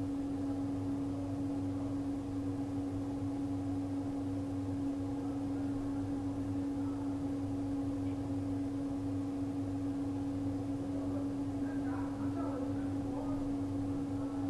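Steady electrical hum with one constant held tone and a faint hiss beneath it, unchanging throughout.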